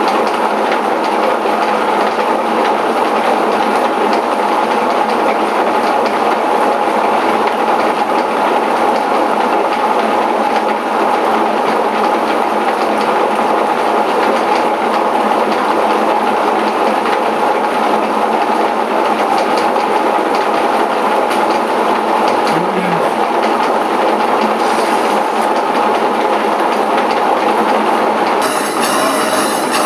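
Milling machine running a saw blade on an aluminium bar: steady, loud mechanical running with a constant whine. The highs change a little near the end.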